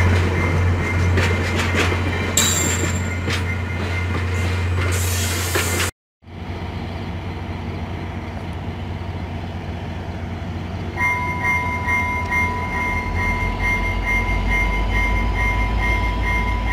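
A VIA Rail train's stainless-steel passenger cars roll past close by, with wheel squeal in the middle of the first few seconds. After a sudden break, an approaching VIA F40PH-2 diesel locomotive rumbles louder as it nears, while a bell rings about twice a second from about halfway through.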